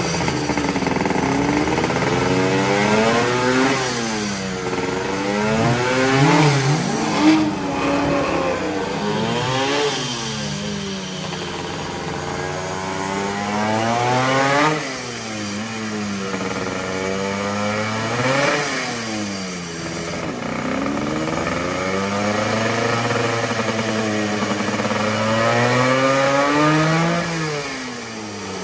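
1972 MZ 250 RE factory racing motorcycle's two-stroke engine being warmed up on a stand, revved in repeated throttle blips so the pitch rises and falls again and again.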